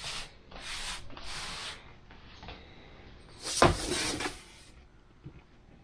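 Three quick scraping swishes, then a louder scrape with a knock about three and a half seconds in: wooden furniture and a board being slid and handled on a desk.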